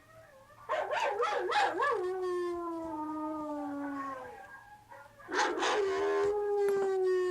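Siberian husky puppy howling: two long howls, each starting with a wavering, broken-up pitch and settling into a long, slowly falling note.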